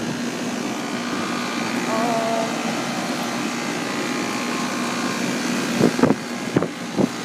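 2001 York central air-conditioning condensing unit running, its A.O. Smith condenser fan motor and compressor making a steady whir with a constant low hum. A few short knocks come between about six and seven seconds in.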